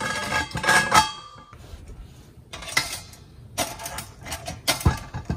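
Stainless steel bain-marie pots scraping and clinking against each other as the perforated inner pot is worked down into the outer pot. There is a ringing metallic clatter in the first second, then a few shorter scrapes and knocks.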